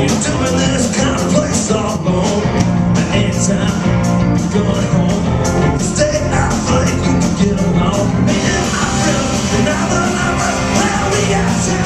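Live rock band playing a song with a steady, even beat.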